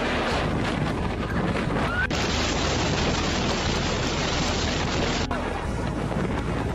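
Typhoon wind and heavy rain: a steady rushing noise with wind buffeting the microphone. The sound changes abruptly twice, about two and five seconds in.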